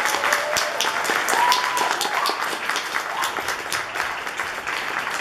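Audience applauding: many hand claps at an irregular, dense pace, with a short shout from someone in the crowd about one and a half seconds in.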